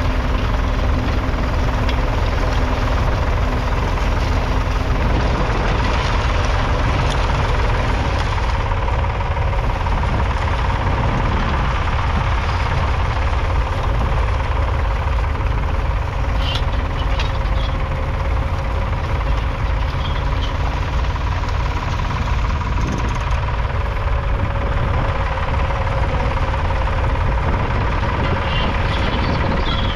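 1966 Ford 4000's 3.3-litre three-cylinder diesel engine running steadily, with a rough, knocking diesel note.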